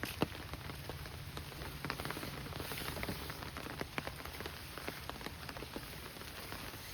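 Steady monsoon rain, with many individual drops landing close by as scattered irregular taps. One tap about a quarter second in is louder than the rest.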